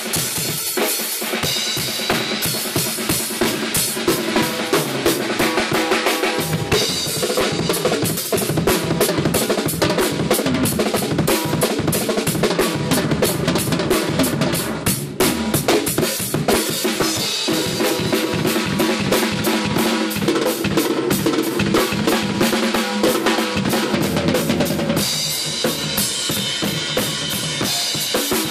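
Drum kit played at a fast tempo, with a dense run of bass drum and snare strokes under cymbals. The pattern changes a few times, most clearly about 25 seconds in, and pitched music runs along with the drums.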